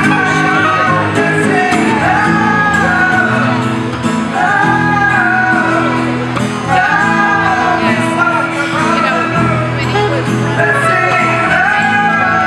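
Live band music: acoustic guitar and electric bass accompanying male voices singing together, with a saxophone playing along.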